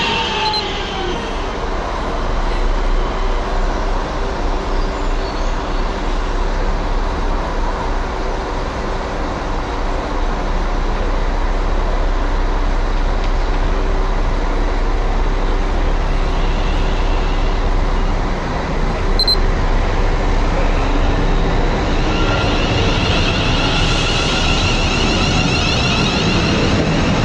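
Electric multiple unit trains on the line: a steady rumble of train and track noise, with a London Midland Class 350 Desiro drawing alongside over the last few seconds, its traction motors giving a rising high whine.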